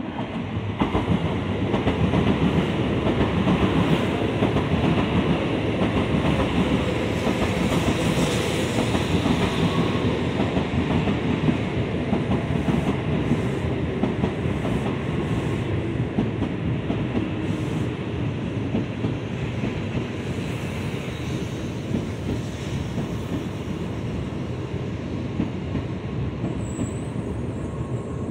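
A Tokaido Shinkansen N700A train passing close by as it arrives at the station, its wheels running on the rails. The sound rises sharply about a second in, then holds steady and eases off slowly as the long train keeps sliding past.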